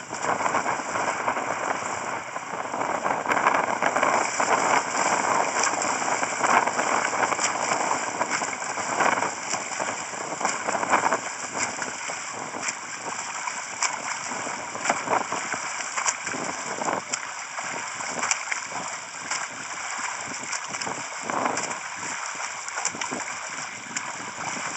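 Water splashing and churning close up as a swimmer's front crawl strokes pass: arms entering the water and legs kicking, in an uneven run of splashes.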